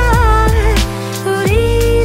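Background music: an R&B-style song with a sung melody over a beat of deep kick drums whose pitch slides down on each hit.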